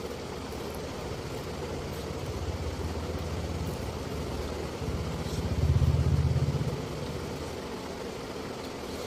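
A low engine rumble, growing louder a few seconds in, peaking around the middle, then falling away again.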